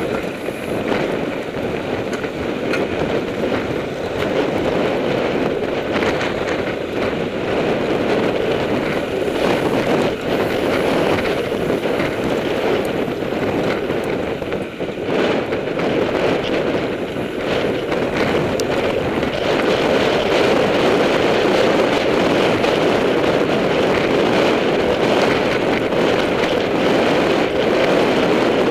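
Wind rushing over the camera's microphone and the rumble of mountain bike tyres on a dusty dirt road while the bike is ridden at speed. It is a steady, loud rush that grows a little louder in the last third.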